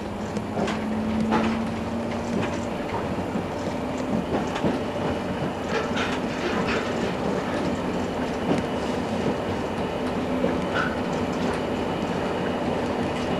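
Running noise heard from inside a guided trolleybus as it travels under electric power through a tram tunnel: a steady rumble with irregular knocks and rattles. A steady hum sounds for the first couple of seconds.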